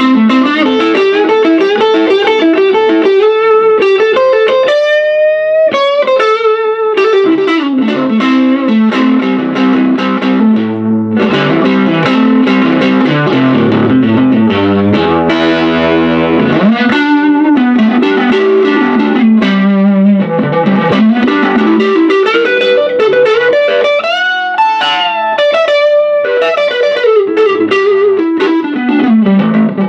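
Stratocaster-style electric guitar played through a 1956 Gibson GA6 tube amp turned up to about three o'clock: picked lead runs and chords, with string bends about five seconds in and again near the end.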